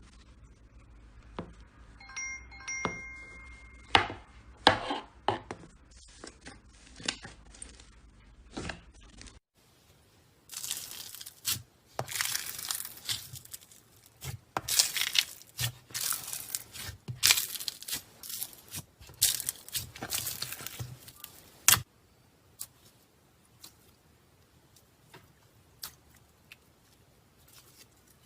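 Slime being stretched and squeezed by hand, making sharp clicks and crackling, sticky pops. About nine and a half seconds in, the sound changes to a denser, louder crackling.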